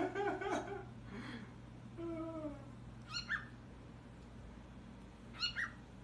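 An animal's calls: a quick run of short pitched calls, a longer falling cry about two seconds in, then short high chirps twice.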